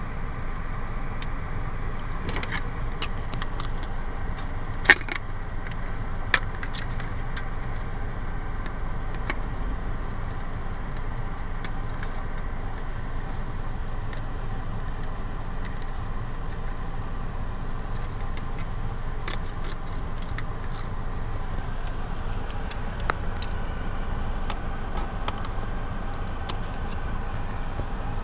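Plastic clicks and small rattles of a car air-vent phone/tablet mount being handled and snapped together, with a sharp click about 5 s in, another shortly after, and a quick run of clicks around 19–21 s, over a steady low rumble.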